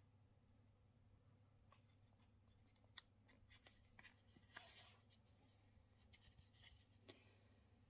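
Near silence with faint ticks and scratches of a needle being pushed through the thread wrapping of a temari ball, and a brief soft hiss about halfway through as the thread is drawn through.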